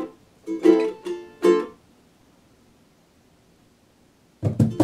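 Ukulele strummed in three short chords, then a pause of over two seconds before the strumming starts again near the end, joined by low thumps.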